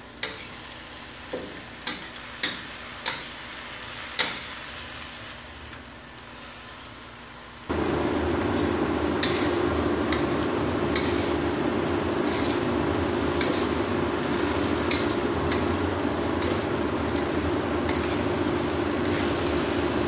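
A metal spatula scrapes and knocks against a steel wok, clicking every second or so, over a faint sizzle as tempeh and long beans are stir-fried and the sauce cooks down to dry. About eight seconds in, a louder steady hum with a rushing noise starts suddenly and carries on under the stirring.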